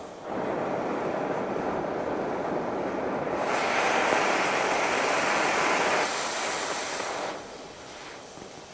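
Oxy-fuel cutting torch hissing as it trims the corners off a quarter-inch steel flat bar. The hiss gets louder and sharper for about two and a half seconds midway, then settles lower near the end.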